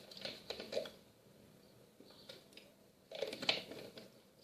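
Quiet clicking and tapping of small objects being handled on a table, in two short clusters: near the start and about three seconds in.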